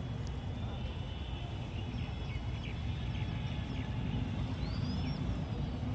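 Faint high chirps of a small bird, with a short rising whistle about five seconds in, over a steady low rumble.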